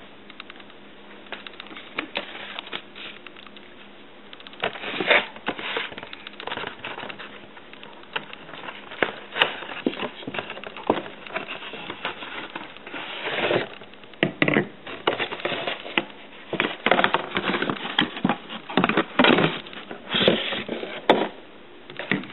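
Cardboard box being handled and opened by hand, with irregular rustling, scraping and sharp knocks as the plastic bottles of a two-part silicone rubber kit are taken out; the handling grows busier in the second half.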